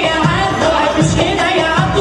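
Recorded Middle Eastern pop song: a singer's voice over a steady drum beat.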